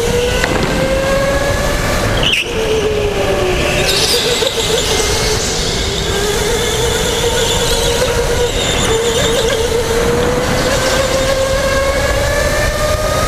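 Electric indoor racing kart's motor whining at speed, its pitch sliding up and down as the kart accelerates and slows through the corners.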